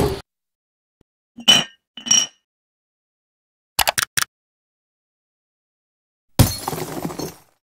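Designed cartoon sound effects: two short clinks about half a second apart, a quick run of clicks a couple of seconds later, then a sudden crash with clattering that dies away over about a second.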